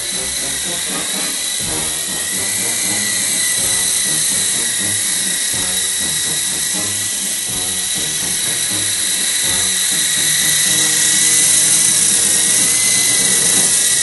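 Small remote-control toy helicopter with coaxial twin rotors, its electric motors whining steadily in flight over the rotor hiss. The pitch drifts slightly and the sound grows a little louder about ten seconds in.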